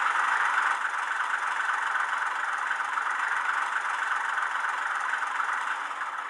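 Model Sentinel 0-6-0 diesel-hydraulic shunter's engine idling steadily, played by an ESU LokSound DCC sound decoder through a small Sugar Cube speaker in the model's nose. The sound is thin, with almost no deep bass.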